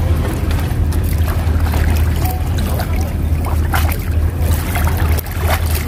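Sea water washing against the breakwater rocks over a steady low rumble, with a few faint clicks.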